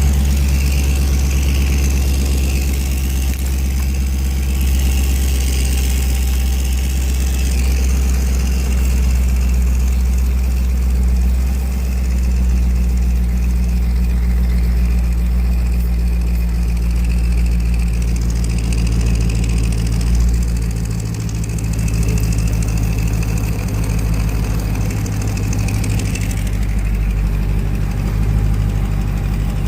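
Car engine idling steadily through a Flowmaster exhaust, which has an exhaust leak.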